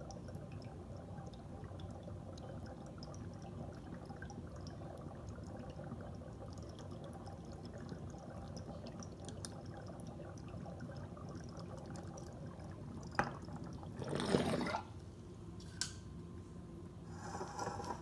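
Water bubbling and crackling steadily through a glass bubbler's percolator as vapor is drawn slowly through it. About fourteen seconds in there is a brief, louder burst of noise between two clicks.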